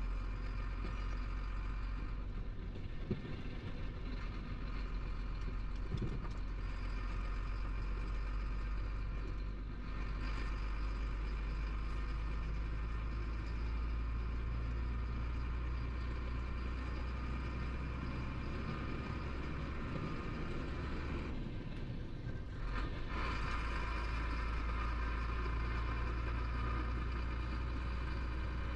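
Chenglong 375 heavy truck's diesel engine running under way, with road noise, heard from inside the cab as a steady low drone with a higher whine over it. About 21 seconds in the sound briefly dips and it picks up again about two seconds later.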